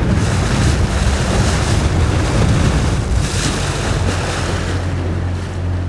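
A boat's engine running steadily as a low hum, under wind buffeting the microphone and the rush of choppy water against the hull.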